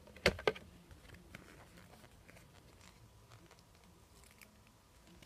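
Two quick knocks as a plastic trick-or-treat pail is set down, then faint crinkling and ticking of a paper sticker sheet as a sticker is peeled off.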